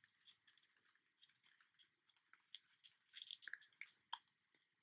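Faint, irregular crinkling and crackling of paper being creased between the fingers as an origami petal is folded in half, with a small cluster of crackles a little after three seconds in.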